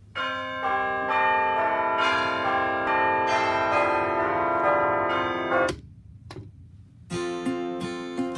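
Melody alarm clock ringing out a chiming, bell-like tune of overlapping notes that cuts off suddenly just before six seconds in. A couple of clicks follow, then strummed guitar music starts about seven seconds in.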